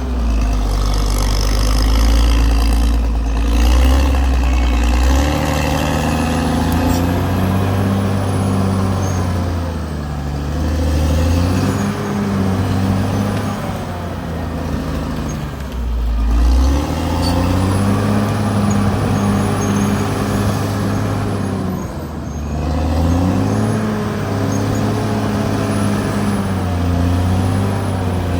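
Caterpillar D6R XL bulldozer's diesel engine working under load, its revs repeatedly rising and falling as it pushes soil.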